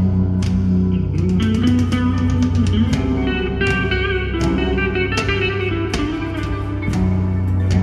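Music with electric guitar over a steady bass line and a regular beat, in a blues-rock style.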